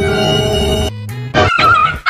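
Background music with held notes that stop about a second in. Near the end comes a short, wavering, high-pitched cry.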